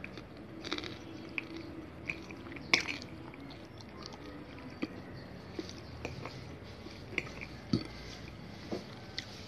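A cat chewing and biting noodles and cabbage off a tabletop: faint, irregular chewing with scattered short clicks, the sharpest about three seconds in.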